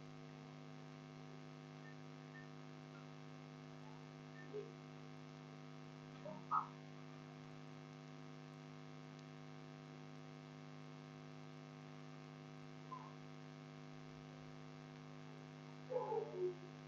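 Steady electrical mains hum picked up by the recording, several steady tones stacked together. A few faint, brief sounds rise above it, the clearest about six seconds in and near the end.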